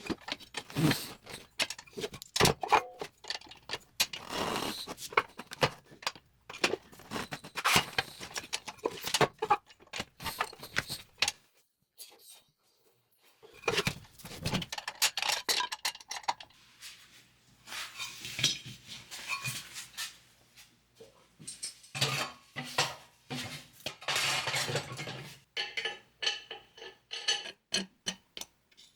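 Irregular metal clanks and clinks of steel tools against a VW wide-five steel rim on a manual tire changer as a tire is worked off the rim. There is a brief pause a little before halfway.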